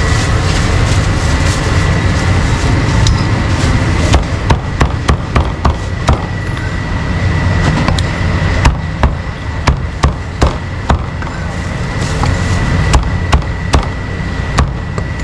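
Cleaver chopping meat on a wooden chopping block: bursts of sharp knocks, two or three a second, from about four seconds in until near the end, over a steady low rumble.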